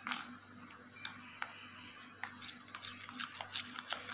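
Metal spoon stirring a thick mayonnaise-and-butter sauce in a plastic bowl: faint, irregular clicks and scrapes of the spoon against the bowl, several a second.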